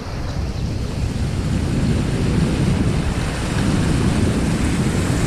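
Wind buffeting the microphone over the steady rush of river rapids: a continuous low rumble with a hiss of moving water above it.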